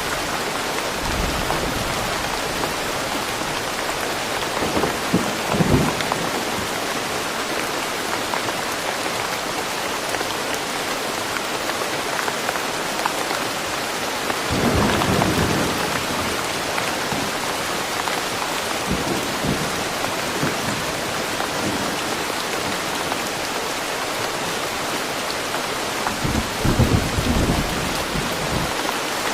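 Steady heavy rain falling, with low rumbles of distant thunder swelling up three times: about five seconds in, in the middle, and near the end.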